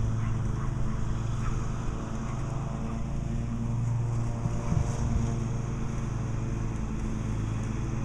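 A steady low engine hum that runs on without a change in pitch.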